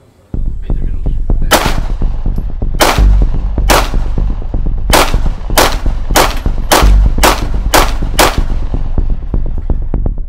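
Ten 9 mm pistol shots fired at an armour test panel. The first few come a second or so apart and the last six quicker, about two a second, all over electronic background music.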